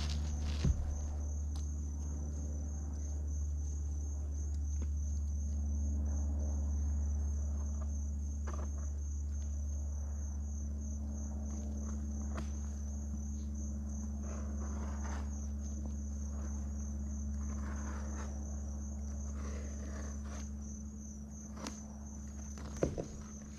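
Insect chorus, crickets or katydids, trilling steadily at a high pitch over a steady low rumble that fades near the end. A few light knocks and rustles come from work on the roof deck.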